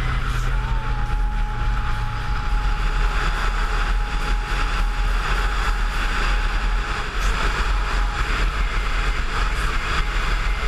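Kawasaki Versys 650 parallel-twin motorcycle running steadily under way, with low road and engine rumble and wind noise on the mounted GoPro microphone.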